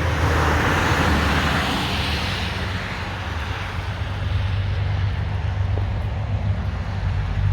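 A road vehicle passing, its rushing tyre and engine noise swelling over the first couple of seconds and then fading away, over a steady low hum.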